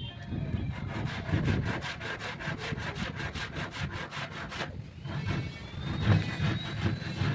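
Rapid, regular strokes of a hand tool rasping on wood, like sawing or sanding, about five a second, stopping about two-thirds of the way through. A high, steady whine follows to the end.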